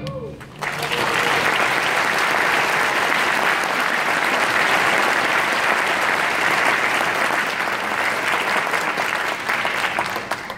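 The last of an orchestra's final chord dies away, and after a brief pause an audience breaks into steady applause. The applause thins out near the end.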